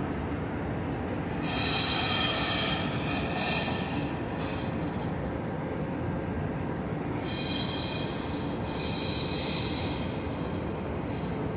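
CFL class 3000 electric locomotive 3010 moving slowly across station pointwork, its wheels squealing in two high-pitched spells, about a second in and again past halfway, over a steady rumble.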